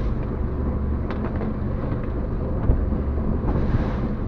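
Boat engine running steadily under a low rumble, with wind on the microphone and a short sharp knock about two and a half seconds in.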